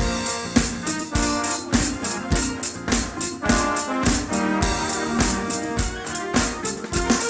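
Worship band playing an instrumental passage: a drum kit keeps a steady beat with kick drum and cymbals under held keyboard chords.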